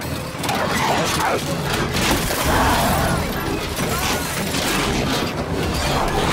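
Film sound effects of dinosaurs attacking a truck: snarls and screeches mixed with crashes, booms and banging against the vehicle's body.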